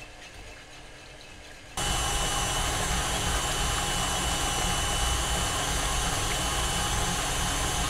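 KitchenAid stand mixer running steadily with a high motor whine, its flat beater whipping cream cheese. It comes in suddenly about two seconds in, after a quiet start.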